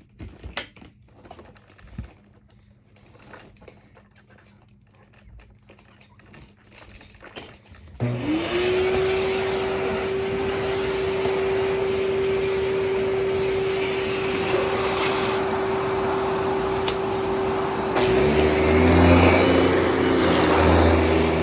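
A few faint clicks and knocks, then about eight seconds in a Kenmore Whisper Tone canister vacuum switches on: its motor whine rises quickly to one steady pitch over a rush of air. About ten seconds later lower tones join in and it gets a little louder.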